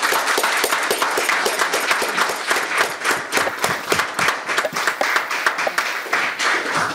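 A small audience applauding: many overlapping hand claps at a steady pace, which then cut off abruptly.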